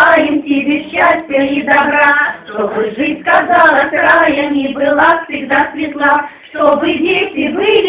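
Several women singing a song together, with long held notes.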